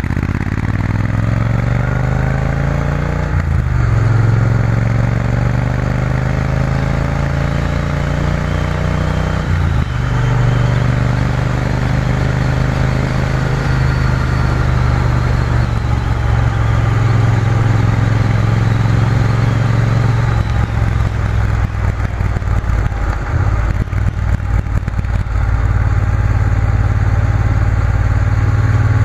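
Triumph Bonneville T120 parallel-twin motorcycle engine pulling up through the gears. The engine note rises, drops at a gear change about three and a half seconds in, and rises again. A second change comes about ten seconds in, after which the bike runs at fairly steady revs, easing off briefly a little past twenty seconds.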